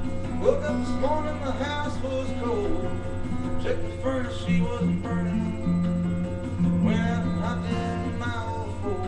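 Acoustic guitar strummed steadily in a chord rhythm, with a voice singing wordlessly along, its pitch gliding up and down.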